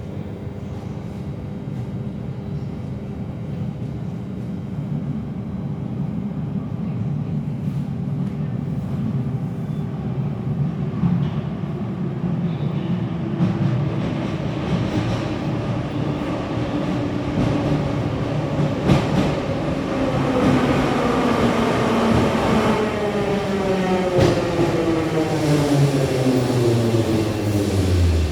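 New York City subway train growing louder as it approaches, with a rumble and a whine that falls steadily in pitch over the last few seconds as the train brakes and slows. A few sharp clacks from the wheels and track come through.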